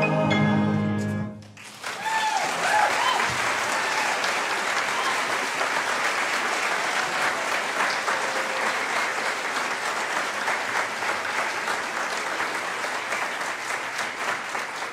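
A men's chorus's final held chord ends about a second in, followed by audience applause with a few cheers.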